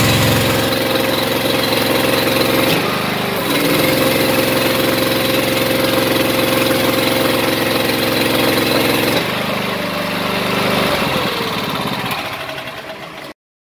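Hydraulic test bench power unit running its pump while a freshly resealed double-acting cylinder is tested. The note shifts several times, about three seconds in and again around nine and eleven seconds, then the sound fades and cuts off abruptly near the end.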